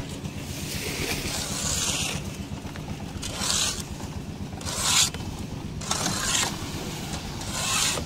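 A steady low drone from a concrete mixer's engine running. Over it come about five short, hissing scrapes of wet concrete sliding and scraping out of a steel wheelbarrow, the loudest about five seconds in.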